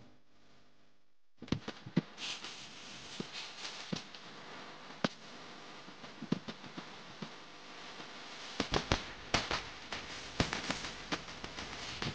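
Irregular sharp pops and cracks over a steady noisy background, starting after about a second and a half of near silence.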